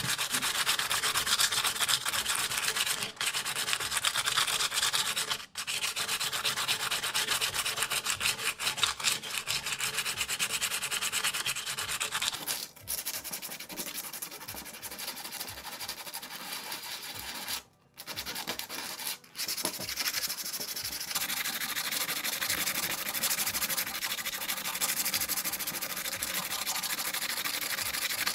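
Hand sanding of a die-cast metal model car body: sandpaper rubbing back and forth over old paint and rust in quick strokes, with a few brief pauses.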